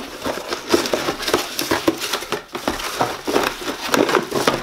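Plastic packaging crinkling and cardboard box rustling as a wrapped part is handled and pulled out of the box: a steady run of irregular crackles and small knocks.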